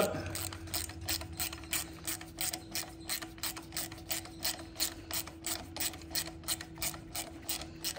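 Ratchet wrench clicking in an even run, about four or five clicks a second, as it runs in the carburetor's mounting bolts to the intake.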